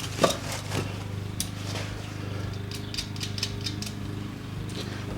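Scattered light clicks and taps of metal tools being handled, over a steady low hum.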